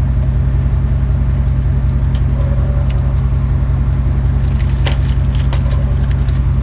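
Steady low rumble of a truck's engine and road noise heard from inside the cab while driving, with a few faint clicks.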